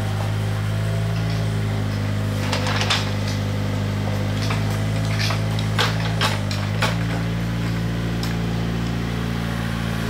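Mini excavator's diesel engine running steadily, its pitch dipping briefly just past the middle as it takes load. Over it come a few short, sharp scrapes and clinks of hand tools digging into rail ballast.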